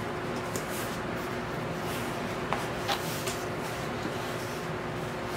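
Cardboard record mailer being handled and its flap opened: a few faint clicks and scrapes of cardboard over a steady background hiss and low hum.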